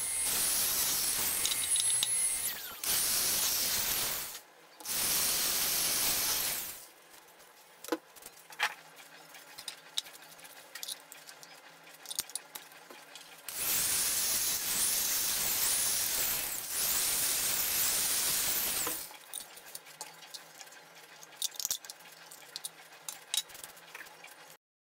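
Power drill boring holes through a plastic enclosure lid, running in several stretches early on and one longer stretch in the middle, with small clicks and knocks of the plastic parts being handled between.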